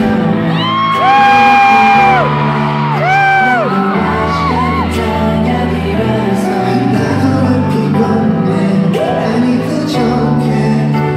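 A pop song played loud through a concert hall's sound system with live singing, long held high notes in the first few seconds, and shouts and whoops from the audience.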